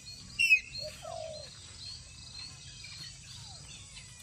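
Birds calling: a loud, short, harsh squawk about half a second in, then a lower call, then scattered faint chirps over a steady low background hum.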